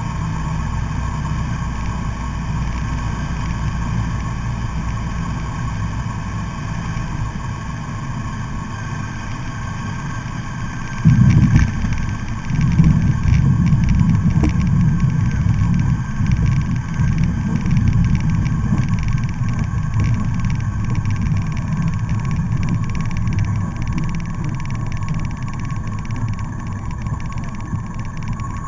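Cessna light aircraft's engine running steadily at low power on approach, heard from inside the cockpit. About eleven seconds in, the wheels touch down on a grass strip with a sudden jump in loudness, and a rough rumble of the tyres rolling over the grass carries on under the engine during a soft-field landing.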